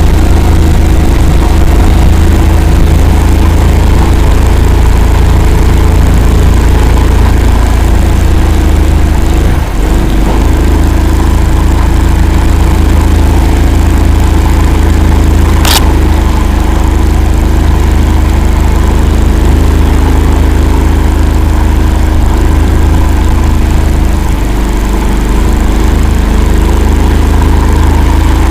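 Engine of the Akula all-terrain swamp vehicle running steadily and loud, with a brief dip about a third of the way through and a single sharp click about halfway.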